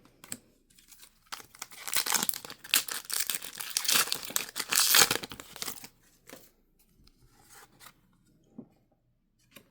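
Crinkly foil wrapper of a Pokémon card booster pack crackling and being torn open for about four seconds, followed by a few faint scattered ticks and taps.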